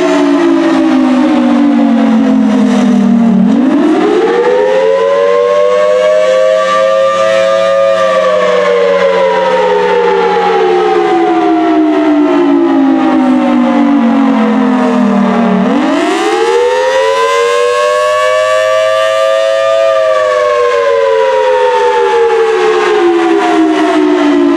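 Federal Signal Thunderbolt 1000T outdoor warning siren sounding a wail, the attack signal. Its pitch climbs over about four seconds and sinks slowly over about eight, twice over.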